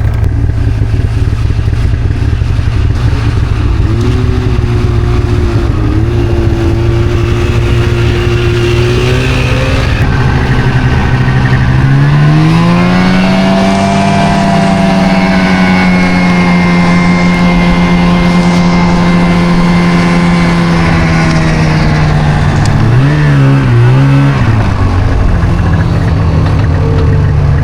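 Snowmobile engine running under way. Its pitch climbs about four seconds in, climbs again around twelve seconds in and holds high, then wavers and drops near the end as the throttle eases off.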